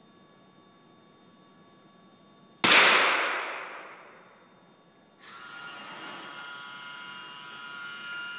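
A single shot from a .22 rimfire small-bore target rifle: a sharp crack that rings out in the range hall and fades over about two seconds. About two and a half seconds later a steady hum with several tones starts.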